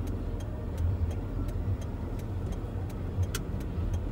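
Inside a car creeping through traffic: low engine and road rumble with a steady train of light ticks, about four a second, from the turn-signal indicator as the car turns.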